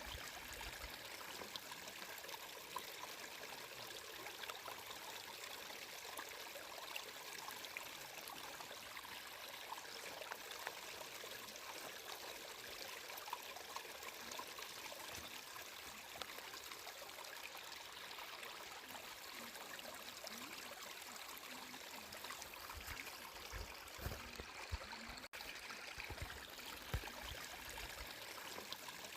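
Flowing water trickling steadily, like a small stream, with a few soft low thuds near the end and a split-second dropout in the sound.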